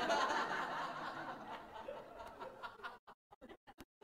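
A small audience laughing: the laughter breaks out at once and dies away over about three seconds, with a few scattered chuckles near the end.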